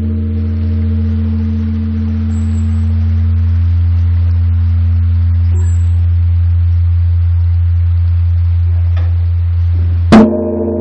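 Large Korean bronze temple bell (beomjong) ringing on in a long, deep hum with higher overtones, swelling slowly. About ten seconds in the bell is struck again, a sharp stroke that brings the ringing back up.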